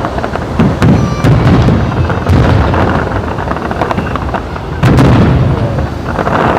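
Aerial fireworks going off in rapid succession: deep booms overlapping one another with sharp cracks, sounding like gunfire. The biggest burst comes about five seconds in.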